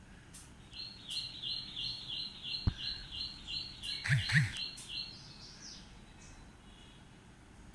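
A bird calling a run of short, high chirps, about three a second, that stops about five seconds in. A sharp tap sounds near the middle, and a short, louder double sound comes just after four seconds.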